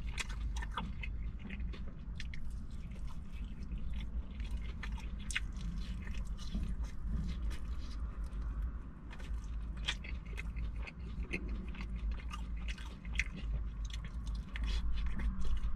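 Close-miked eating of crispy fried chicken: repeated bites and chewing, with many sharp crunches, over a steady low hum.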